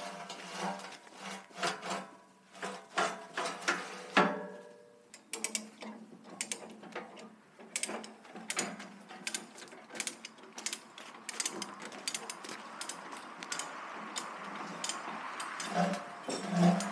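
Metallic clicks and clanks of trailer tie-down gear and steel loading ramps being worked by hand, including the ratcheting of a chain binder; the clicks come thicker and faster from about a third of the way through.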